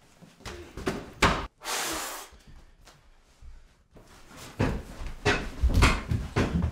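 A flurry of knocks, bangs and heavy thumps as a person rushes around a room handling and throwing things, with a short hiss about two seconds in and a quicker, heavier run of thumps near the end.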